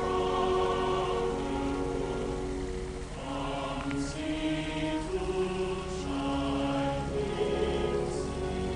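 Music of slow, held chords that change about every second, over the steady splashing of water churning in a garden pond.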